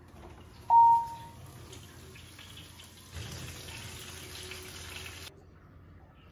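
Roast chicken thighs sizzling in their fat in a metal roasting pan as it is drawn out of the oven, the sizzle growing louder about three seconds in and stopping short about five seconds in. A single loud short beep sounds just under a second in.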